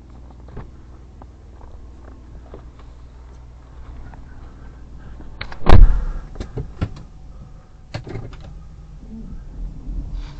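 A car door shuts with a loud, heavy thump about halfway through, followed by a few light clicks and knocks, over the low steady hum of the Hyundai Terracan's 3.5 V6 idling.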